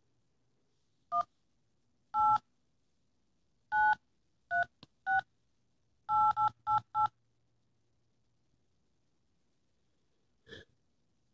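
iPhone keypad touch tones as a phone number is dialed: nine short dual-tone beeps for the digits 1-8-9-3-6-8-8-8-8, spaced out at first, the last four quick in a row. A brief fainter sound follows near the end.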